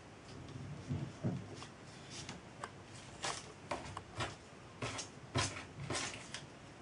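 Hands working tape and insulating lagging around a small model steam boiler: irregular rustles and light clicks as the material is pressed and wrapped.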